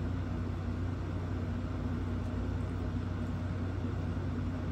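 Steady low mechanical hum of room noise, even and unchanging, with no distinct sounds standing out.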